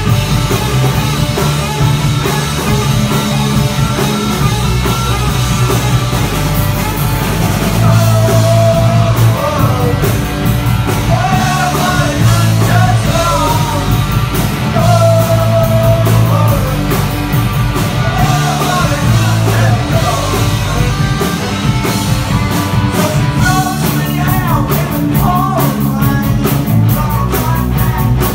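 Rock band playing live: electric guitars and drums, with a male voice singing over much of it.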